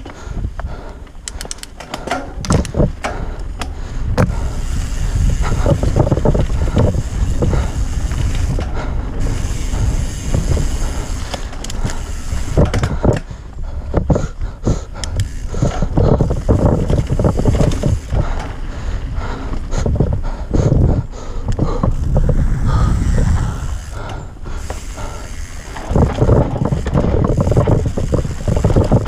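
Mountain bike descending a dirt singletrack: steady wind rumble on the on-bike microphone, tyres rolling over dirt, and frequent clicks and knocks from the bike's parts over bumps. The rumble swells and eases in stretches, with quieter spells around halfway and shortly before the end.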